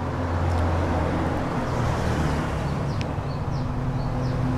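A steady low motor rumble that slowly grows louder, with a couple of faint clicks.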